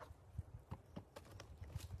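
A faint series of irregular light knocks and thuds, about six in two seconds.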